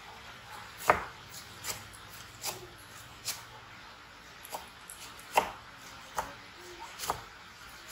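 Kitchen knife chopping lemongrass root on a thick round wooden chopping board: a steady run of sharp knocks, a little more than one a second, the loudest about a second in and a little past the middle.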